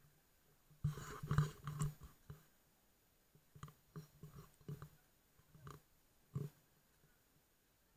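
Handling noise from an action camera turned over in the hand: soft knocks and rubs against its housing, a close cluster about a second in, the loudest part, then single clicks every second or so.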